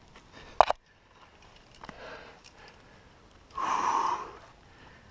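A climber breathing hard while climbing, with a loud, forceful exhale lasting about a second, a little past halfway through. Just over half a second in there is a single sharp click.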